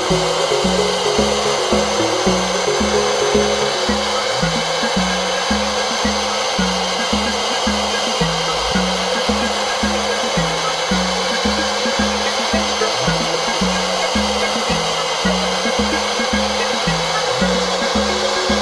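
Handheld hair dryer blowing steadily, hot air aimed at a laptop motherboard's faulty graphics chip to heat it. Background music with a regular beat plays underneath.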